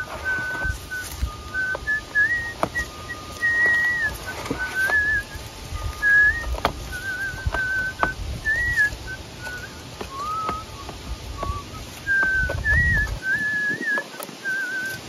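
Someone whistling a slow tune, a single clear line of short held notes that waver and slide. A few light clicks from handling the terracotta pot and potting soil sound under it.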